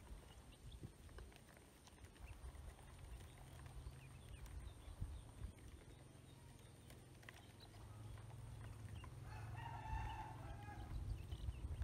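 A rooster crows once, about nine and a half seconds in, lasting just over a second, over a low steady rumble. Faint short ticks and peeps come from ducklings feeding in a plastic basin.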